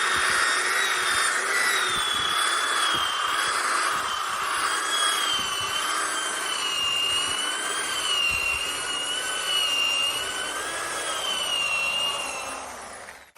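Electric motor of a JLD 3301 5-inch polisher-drill running under load, its high whine wavering up and down in pitch, then fading out near the end.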